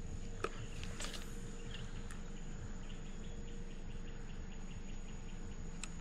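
Insects trilling steadily at a high pitch in the waterside vegetation, with a few sharp clicks in the first couple of seconds and again near the end.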